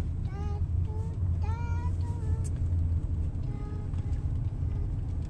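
Car cabin noise while driving slowly: a steady low rumble of engine and road. A child's high voice sings a few short notes over it near the start and again in the middle.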